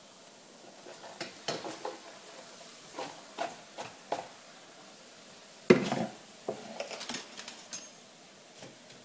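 Cookware clattering: a utensil knocking and scraping against a pan in a string of irregular knocks. The loudest comes a little past halfway, followed by a quick cluster of lighter clinks.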